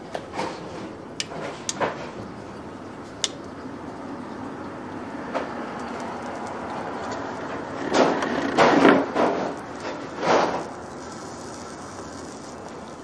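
Vegetables and mushrooms sizzling steadily on an open electric contact grill. A few light clicks come in the first three seconds, and louder rustling noises swell up several times about two-thirds of the way in.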